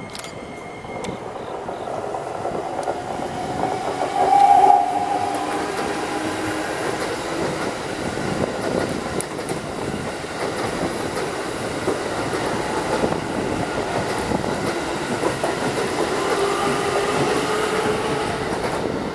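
Keikyu 2100 series electric train passing through at speed: the whine of its Toyo IGBT VVVF inverter runs over the clickety-clack of wheels on the rails. The sound builds as the train approaches, with a brief louder tone about four seconds in.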